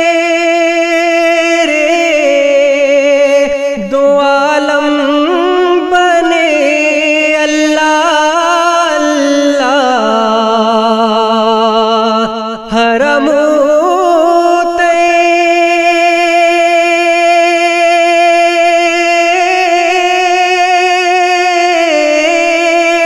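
Naat sung in a wordless vocal line: a voice holds long notes that waver steadily, and for a few seconds in the middle it bends and glides through a melismatic run before settling back onto a held note.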